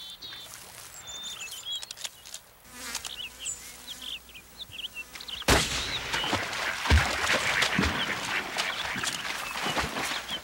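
Small birds chirping, then about five and a half seconds in a sudden loud crack of a hunting rifle shot during a moose hunt. Several seconds of loud rustling noise with a few heavy thuds follow.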